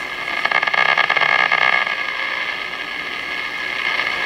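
Static and hiss from the loudspeaker of a Zenith 6S527 tube radio as its dial is tuned, with a spell of crackling from about half a second to two seconds in. The set is running at reduced voltage through a dim-bulb tester.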